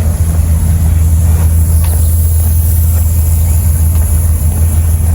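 Steady, loud low drone of the park's outdoor air-conditioning blowers, with a constant hiss of moving air over it.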